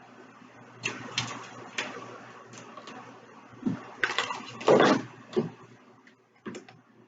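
Hand-work handling noise: scattered sharp clicks and taps, with a louder brief scraping rustle about five seconds in, as a hot glue gun and bead trim are handled on a hard surface.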